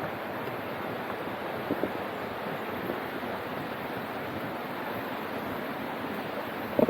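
Steady rushing of a mountain stream, an even hiss with no rise or fall, with a few short soft knocks about two seconds in and again at the very end.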